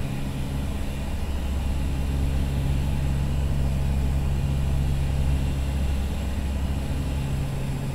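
Steady low drone of the Convair 580's two Allison 501 turboprop engines and propellers, with airflow noise, heard inside the cockpit on final approach.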